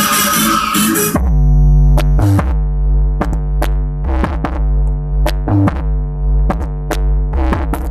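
Electronic dance music played loud through a large sound system under test: a drum-machine beat with synth notes and a heavy sustained bass. A bright noisy sweep fills the first second or so.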